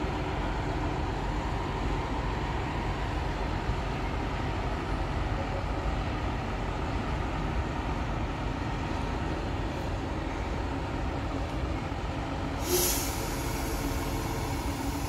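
Electric multiple unit running slowly into the platform, a steady low rumble with a faint hum. A short sharp hiss of air, typical of the train's air brakes, comes about three-quarters of the way through.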